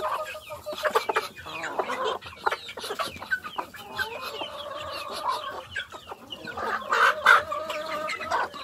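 A flock of chickens clucking and giving drawn-out calls while they are fed, with many short sharp taps of pecking at feed on the ground.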